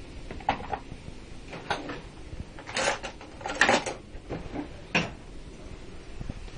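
A series of short knocks and rustles from things being handled and moved about in a kitchen, about half a dozen in all, the loudest two a little past halfway.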